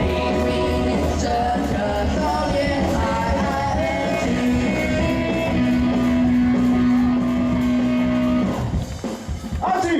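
Music playing, with a long held note that cuts off near the end.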